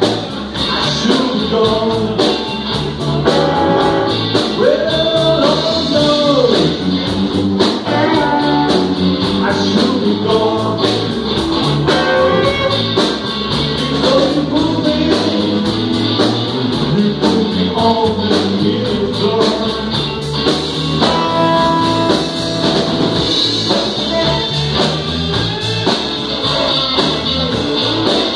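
Live rock band playing a blues-rock jam: electric guitars over a drum kit, with a guitar line whose notes bend up and down.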